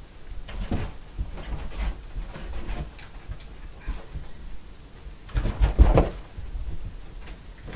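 Irregular soft thumps and knocks from a chihuahua puppy scrambling on carpet and batting a rubber balloon, with a louder cluster of thumps about five and a half seconds in.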